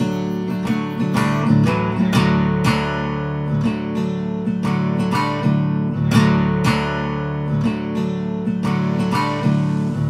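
Background music: acoustic guitar strumming a steady rhythm.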